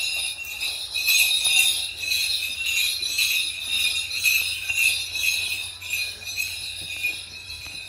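Sleigh-type dance bells on a leather strap, part of Southern Straight regalia, jingling continuously as they are shaken by movement, growing fainter toward the end.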